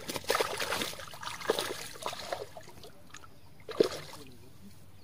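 Pond water splashing and sloshing in irregular bursts as a mesh keep net is worked down into the shallows and hands are dipped in the water, with one sharper splash near the end.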